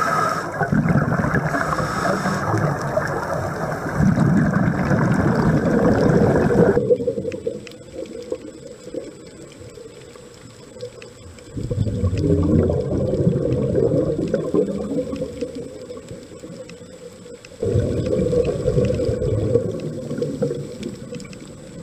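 Underwater recording of a scuba diver's regulator and exhaled bubbles, rushing and gurgling in surges. After about seven seconds the sound turns muffled, with two more long bursts of bubbles.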